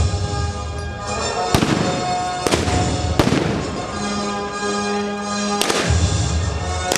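Five loud shots, three in quick succession and then two more a few seconds apart, each with a short echo, over background music with held notes.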